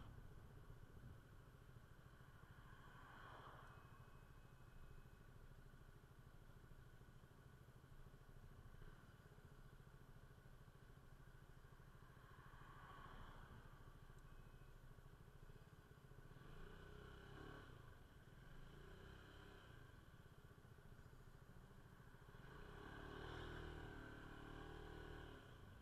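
Faint, muffled running of a Peugeot Metropolis 400 scooter's single-cylinder engine while riding, under a steady low rumble of wind on the microphone. The sound swells a few times, most strongly near the end.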